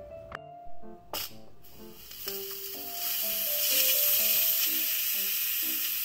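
Steam hissing steadily out of an electric pressure cooker's release valve, starting between two and three seconds in, as the pressure left after a natural release is vented. Light background music with plinking notes runs throughout, and there are two short knocks in the first second and a half.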